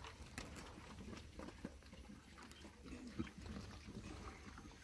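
Pigs grunting now and then with short low grunts, with scattered small clicks and wet sounds as they root and feed in the mud.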